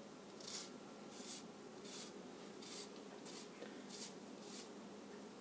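Microplane zester grating Meyer lemon peel: faint, rhythmic rasping strokes, about seven of them at an even pace of roughly three every two seconds.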